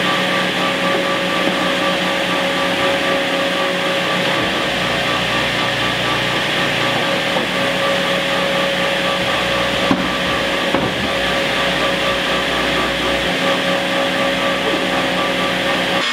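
Electric workshop machine running steadily, a constant motor noise with a steady whine.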